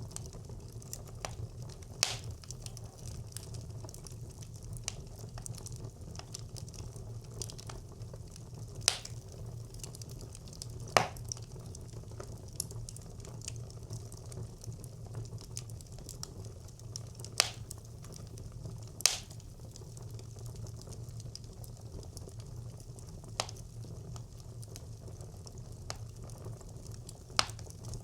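Wood fire burning in a brick clay stove: a steady low rush of flame with a faint hiss, broken by sharp crackles and pops every few seconds as the wood splits.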